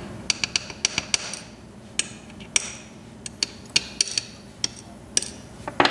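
Pin-tumbler padlock key pins being dumped out of the lock's cylinder: a scattered run of small, sharp metallic clicks with a brief high ring as the pins drop and knock onto a hard surface.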